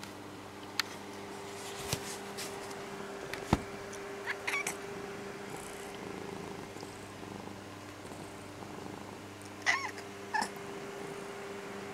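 Orange-and-white cat giving a few short, quiet meows, one about four and a half seconds in and two close together near the end, with a sharp click between them, over a steady low hum.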